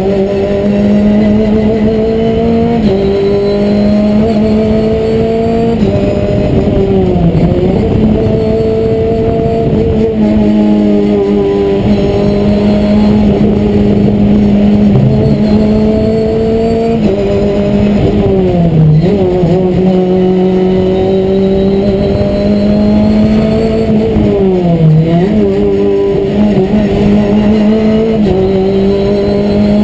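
Renault Clio Cup race car's four-cylinder engine at full throttle, heard from inside the stripped cabin, pulling up through the revs with several gear changes and dropping sharply in pitch with downshifts about 7, 19 and 25 seconds in.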